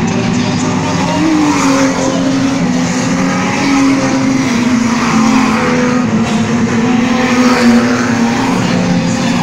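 Race car engines running loudly and steadily as cars go round the track.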